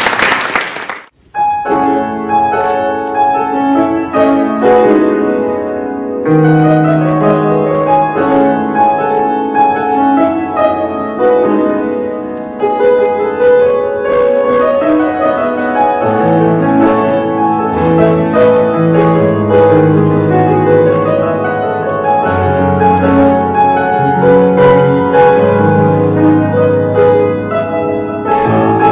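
Applause dies away about a second in. A grand piano is then played solo in a flowing piece, with low bass notes joining about halfway through.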